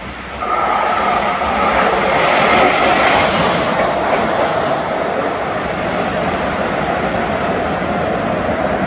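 Track-inspection train running along the track, a loud rush of wheels and machinery that sets in about half a second in and is loudest around three seconds in.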